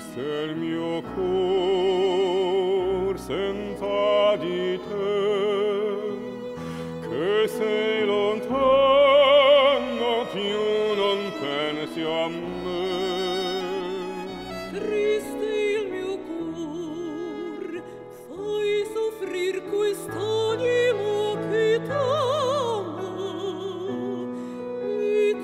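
A woman singing classical operatic song with a wide vibrato, accompanied by violin and piano.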